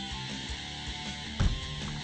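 Background music with electric-guitar strumming, with a single sharp knock about a second and a half in.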